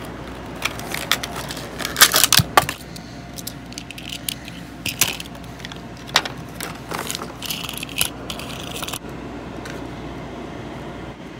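Crinkling plastic wrapping and scattered clicks and taps as a small toy car is unwrapped and handled, densest about two seconds in and dying away after about nine seconds.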